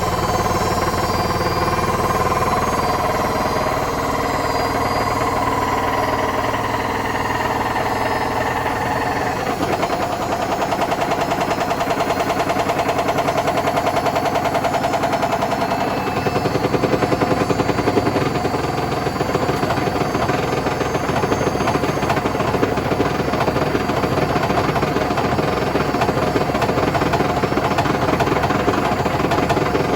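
Hotpoint BHWMXL145 washing machine running its spin with a broken drum spider: a motor whine that shifts pitch a couple of times over a fast, continuous rattling knock from the wobbling drum. The knocking grows a little louder past the middle.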